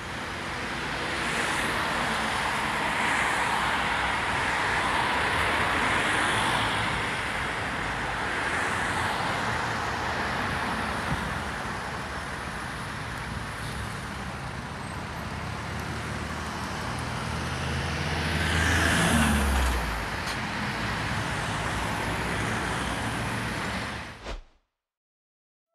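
Outdoor road-traffic noise, a steady rushing hum, with one vehicle passing closer about 19 seconds in, its engine note falling in pitch. The sound cuts off abruptly near the end.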